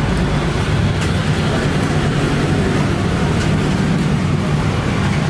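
Steady low mechanical drone of a running motor, unchanging throughout, with a few faint clicks over it.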